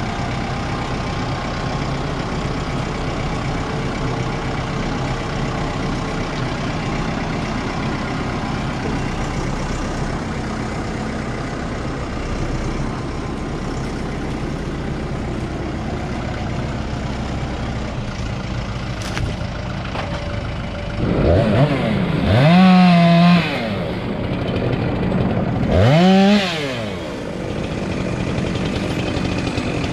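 Fendt 312 Vario tractor engine running steadily. About two-thirds of the way in, a chainsaw is revved twice in short bursts, each rising and falling in pitch, louder than the tractor.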